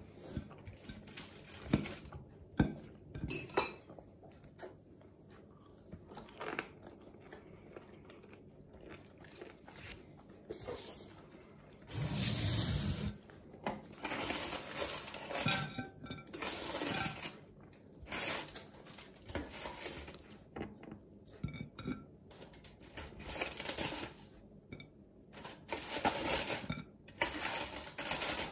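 Metal forks clinking and scraping on plates, with irregular knocks of tableware being handled while eating. A louder burst of rustling noise comes about twelve seconds in.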